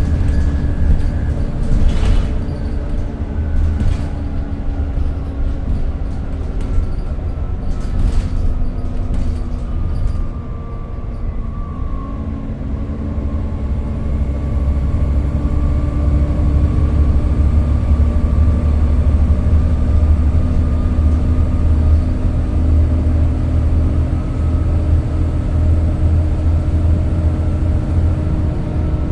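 Volvo B7TL bus's six-cylinder diesel engine running under way, heard from on board, with a few sharp knocks and rattles early on. About a third of the way in the engine note drops, then climbs steadily as the bus pulls away again.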